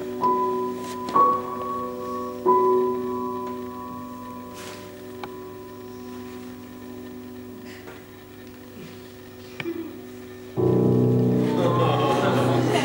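Slow piano notes, three struck one after another near the start and left to ring, dying away. About ten and a half seconds in, a much louder, fuller sound cuts in suddenly.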